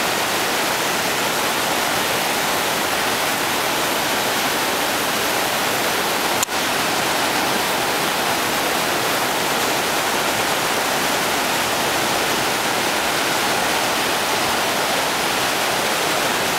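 Fast mountain river rushing over boulders in white-water rapids: a steady, unbroken roar of water. A single brief click about six and a half seconds in.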